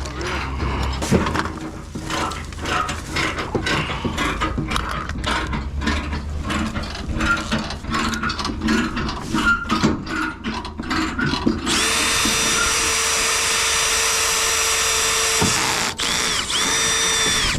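Irregular clicking and knocking of tools and parts being handled, then a power drill running at a steady speed for about four seconds. It stops, then spins up again briefly near the end, drilling a hole through plastic.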